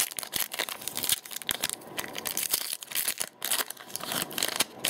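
A Magic: The Gathering booster pack's foil wrapper being torn open and crinkled by hands, with many sharp crackles and rustles as the cards are pulled out.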